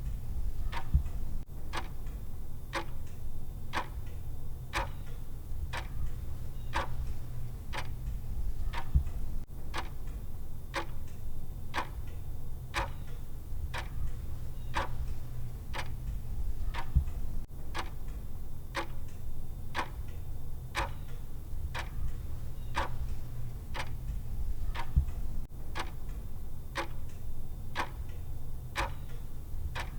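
Clock-style timer ticking steadily, one tick a second, over a steady low hum.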